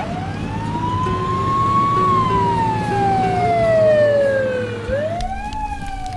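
A siren-like wailing tone that slowly rises, falls for a few seconds, then rises and falls again near the end, over background music.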